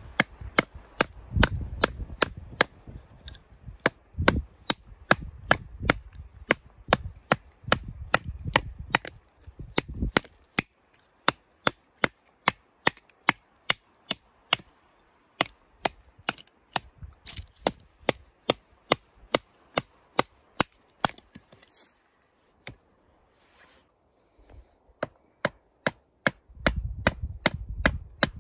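Survival knife blade chopping into a wooden stake: a steady run of sharp knocks, about two to three a second, with a short lull about three-quarters of the way through. Near the end come heavier thuds as a wooden baton strikes the knife's spine.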